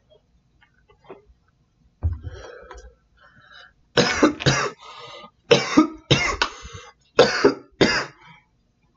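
A man coughing hard after a bong hit: six loud, harsh coughs in pairs, the smoke catching in his throat.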